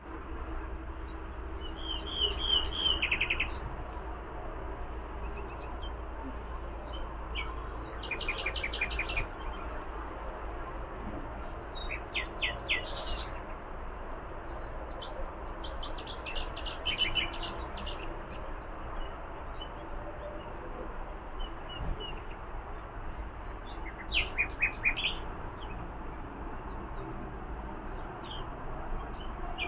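A songbird singing short, rapid trilled phrases of high notes, each about a second long, five times over with pauses of several seconds between. A steady low background rumble runs underneath.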